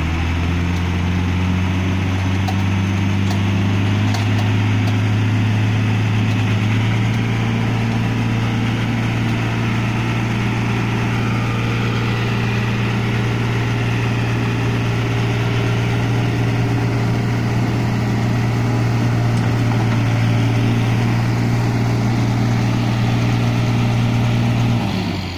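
Case IH JX75C tractor's diesel engine revved up and held at high, steady revs while pulling a stuck truck out of the mud on a tow strap, then dropping back near the end.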